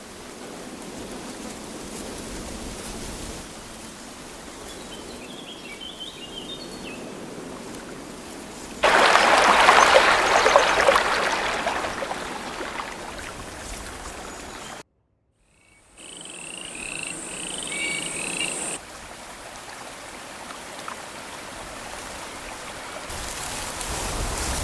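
Synthesized nature ambiences from the Krotos Studio Genesis sound pack, played one after another. Hissing ambience beds switch abruptly several times, with one much louder rush about nine seconds in and a brief dropout to silence about fifteen seconds in. Short chirping animal calls come in twice, about five and about sixteen seconds in.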